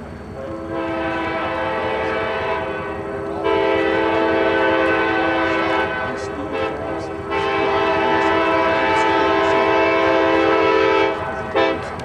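Nathan Airchime K-5LA five-chime air horn (K-5LAR24) sounding its chord in a series of long blasts. The chord fills out about a third of the way in, and there are a short dip past halfway and a short blast near the end.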